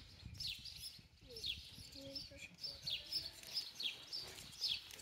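A small bird chirping over and over, each chirp a short high note sliding downward, about two a second.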